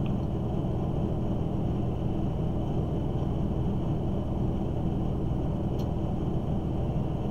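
Steady low rumble of room background noise, with a faint steady high whine above it and a faint click about six seconds in.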